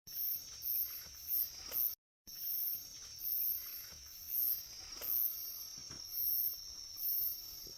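Night insects calling: a steady high-pitched trill with a higher chirp repeating about once or twice a second. The sound cuts out briefly about two seconds in.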